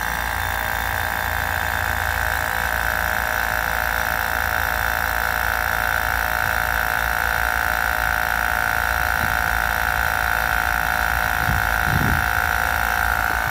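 Viair 70P 12-volt portable tire compressor running steadily while inflating a fully deflated car tire: a constant motor hum with a high, steady whine over it.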